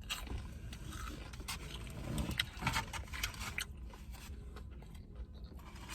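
Close-up eating sounds: chewing and mouth clicks with small scrapes and rustles of food being handled, in a series of short irregular clicks.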